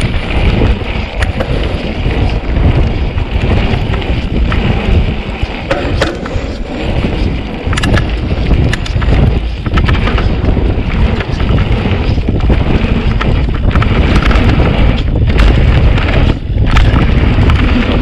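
Mountain bike riding down a dirt trail: wind rumbling on the microphone over the tyre noise, with frequent knocks and rattles from the bike over bumps.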